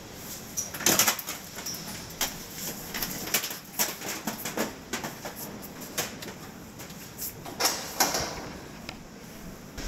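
Footsteps on a steel-grating walkway: a run of sharp, irregular clicks and clanks, about two a second, over a steady background hiss.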